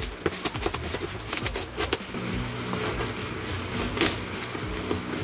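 Plastic packaging and bubble wrap rustling and crackling, with a run of sharp clicks in the first two seconds and a louder snip about four seconds in as scissors cut through the plastic.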